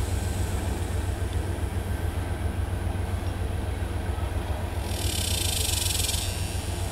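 Manifest freight train's tank cars and covered hoppers rolling past, a steady low rumble of wheels on rail. A burst of hiss comes about five seconds in.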